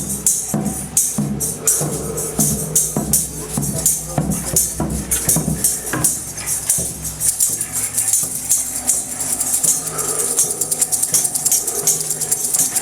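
Music with a steady rhythm of shaken percussion, jingling strikes several times a second over low sustained tones.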